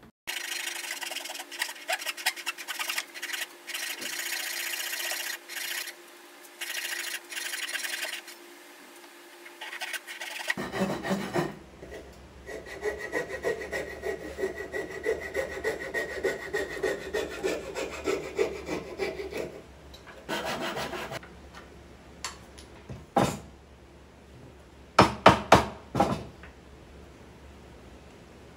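Hand saw cutting dovetails in a wooden board, quick back-and-forth strokes in two long stretches. A few sharp knocks follow toward the end.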